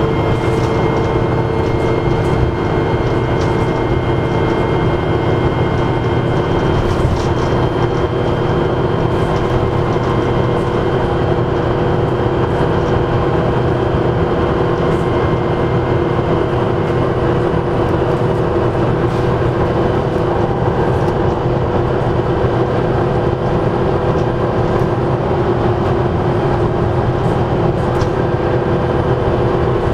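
Dennis Trident double-decker bus running steadily, its engine drone carrying a steady high-pitched turbocharger whine.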